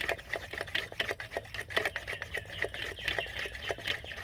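The hand plunger pump of a vintage gasoline blow torch being worked in quick, even strokes, several a second, to pressurize the fuel tank. The pumping stops near the end.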